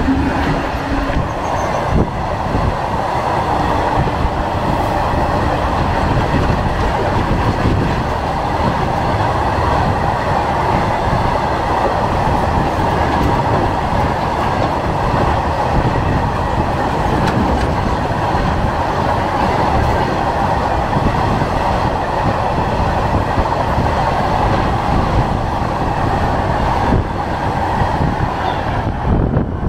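Loaded freight train of open steel box wagons rolling past close by: a steady, continuous rumble and clatter of wheels running on the rails.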